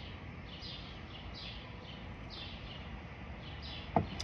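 A songbird repeating a short falling chirp every half second or so, over a low steady background hum. Near the end comes a single sharp knock, the loudest sound here.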